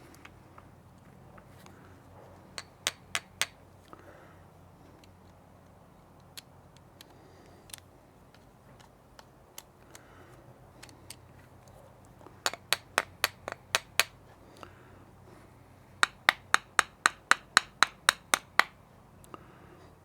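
Sharp, light metal taps in quick runs, about five a second, from tools worked on a small-engine carburetor as its jet and emulsion tube are taken out. The longest run comes near the end, after a shorter run about two-thirds of the way in and a few taps early on.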